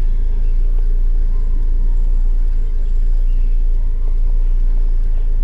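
Steady low rumble of a car moving slowly in traffic, heard from inside the cabin: engine and road noise.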